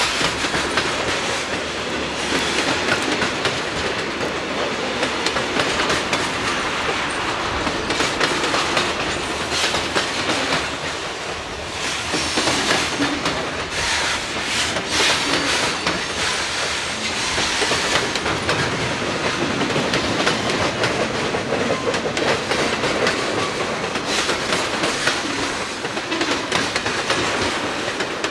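Freight cars rolling past, first covered hoppers and then tank cars, with steel wheels clacking over the rail joints in a steady stream of clicks over a constant rolling rumble.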